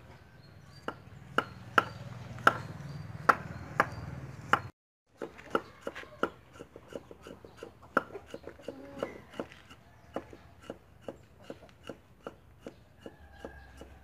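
Cleaver cutting a peeled root on a thick wooden chopping board, each stroke a sharp knock of the blade on the wood: about two a second at first, then after a brief break a quicker, quieter run of about three a second.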